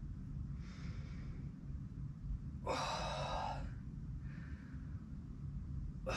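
A woman exhaling hard in time with a dumbbell chest fly, breathing out as the weights come together. One loud breath comes about three seconds in, with fainter breaths around one second and four and a half seconds in, over a low steady hum.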